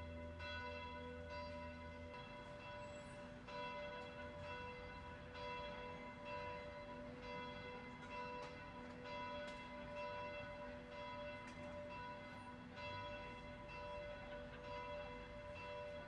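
Church tower bells ringing: several bells struck over and over, a new stroke about every second, each ringing on into the next.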